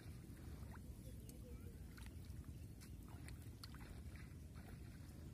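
Small splashes and drips of water as hands work a bamboo pole into shallow paddy water, heard as scattered short ticks over a steady low wind rumble on the microphone.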